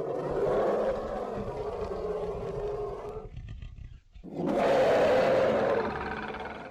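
Monster-like roar sound effect of a Power Rangers Zord, a giant robot beast: two long roars, the second starting about four seconds in.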